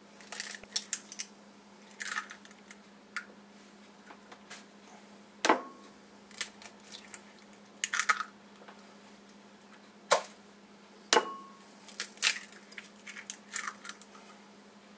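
Three brown eggs cracked one after another into a glass bowl: sharp taps on the bowl, a few followed by a brief ringing of the glass, and the crackle of shells being pulled apart.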